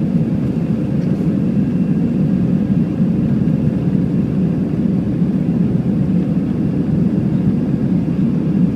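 Steady cabin roar inside an Airbus A320 in the climb after takeoff: jet engine noise and rushing air, heaviest in the low range, with a faint steady hum above it.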